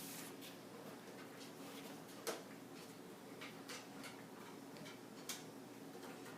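Faint clicks and light taps of handling, the clearest about two seconds in and again about five seconds in, over a low steady hum.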